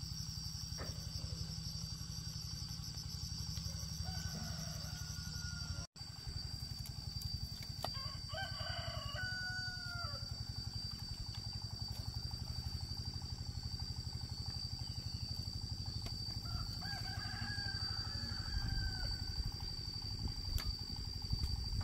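Rooster crowing twice, each crow about two seconds long, with a fainter call a few seconds before, over a steady high whine.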